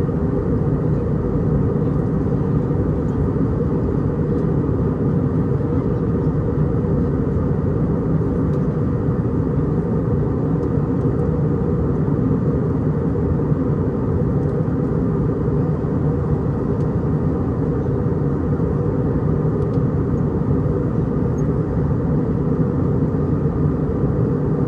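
Steady cabin noise inside an Airbus A319-114 on approach: the rush of airflow over the fuselage and the hum of its CFM56 turbofan engines. It is a constant low rush that holds at one level, with no changes in engine power.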